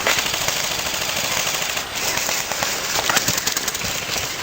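Airsoft guns firing during a game: rapid clacking shots and short bursts, with a few louder single shots about two and three seconds in.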